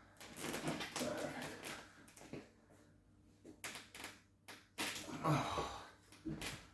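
Rustling movement with a few short, sharp clicks and knocks.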